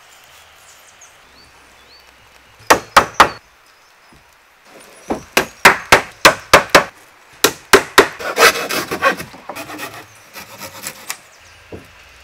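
Hammer blows on wooden planks: three quick strikes a few seconds in, then a longer run of evenly spaced strikes. About eight seconds in they give way to a stretch of rapid scraping strokes on wood, like hand sawing, then a few softer knocks.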